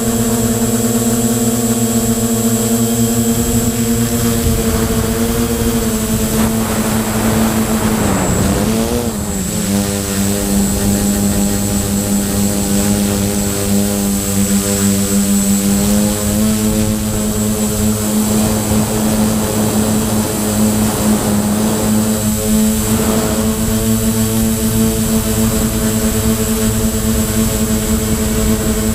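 Quadcopter's four Multistar 2213 980 kV brushless motors spinning 9×4.7 Gemfan props in flight, a loud steady buzzing whine heard from the onboard camera. About eight seconds in the pitch dips sharply as the throttle is chopped, then climbs back, with smaller wavers in pitch later on.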